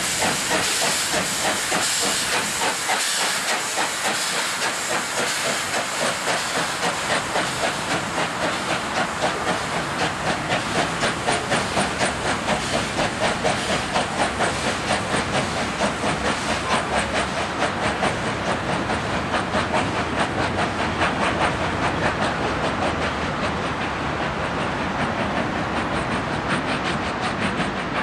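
Steam locomotive venting a loud hiss of steam, then working steadily with a regular rhythm of exhaust chuffs, about two beats a second, that sets in about eight seconds in.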